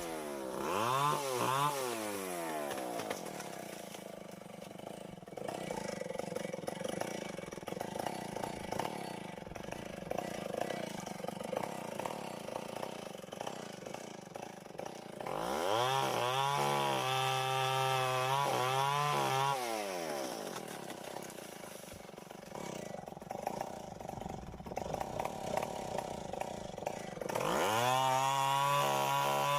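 Two-stroke Tecomec chainsaw running, revved up to full throttle three times with its pitch falling back to a lower, rougher running speed in between: high and dropping at the start, up again for a few seconds in the middle, and climbing again near the end.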